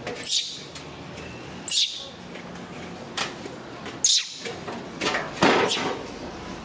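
Baby macaque giving about four short, high-pitched screams in distress as it is held wet at bath time.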